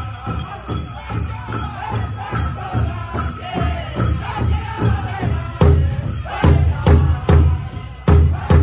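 Powwow drum song: a steady bass drumbeat, about three beats a second, under the singers' voices. The drumbeats hit harder from a little past halfway.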